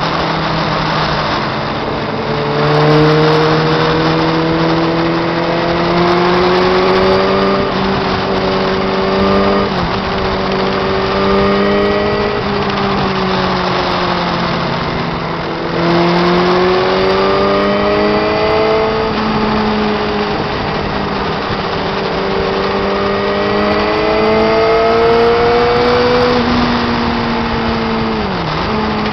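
Motorcycle engine heard from on board at road speed, its note climbing slowly and dropping sharply three times, with heavy wind rush over the microphone.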